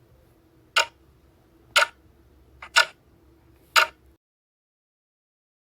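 Clock ticking sound effect: sharp ticks once a second over a faint hum, stopping about four seconds in.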